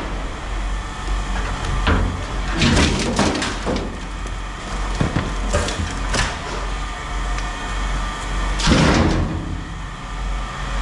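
Metal-framed wicker patio furniture being shoved into a scrap bin among wire baskets and metal scrap: a string of knocks, scrapes and clanks, the loudest about nine seconds in. A steady low rumble runs underneath.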